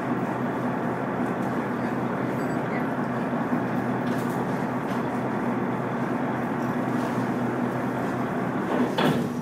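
Tour boat's engine running steadily under way, a constant low drone with water rush, heard from inside the hull at the viewing glass. A brief click near the end.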